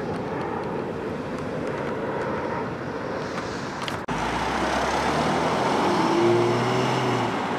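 Road traffic: motor vehicles running, a steady rushing engine and tyre noise. It cuts off abruptly about four seconds in and gives way to a lower, nearer engine hum.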